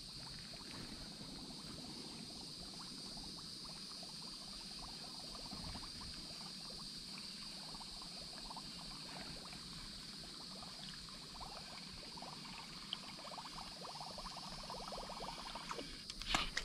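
A faint, steady, high-pitched insect drone over soft water trickling and splashing as a topwater lure is worked back across the pond surface. A louder rustling burst comes right at the end.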